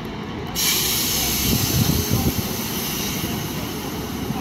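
A sudden, steady hiss of compressed air from a diesel multiple unit's air system, starting about half a second in, over the low rumble of idling diesel train engines.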